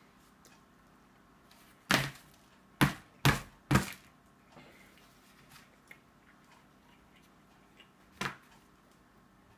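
Five sharp thumps. Four come close together from about two seconds in and one more comes near the end, with quiet room noise between them.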